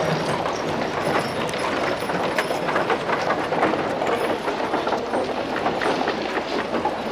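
Old-west street ambience: a horse-drawn carriage rattling along, wooden wheels and fittings clattering in a dense, continuous stream of small knocks.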